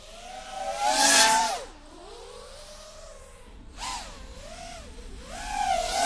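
Multirotor drone flying close by, its motors and propellers whining and changing pitch as it moves. There is a loud rushing pass about a second in, after which the pitch drops, and it swells again near the end.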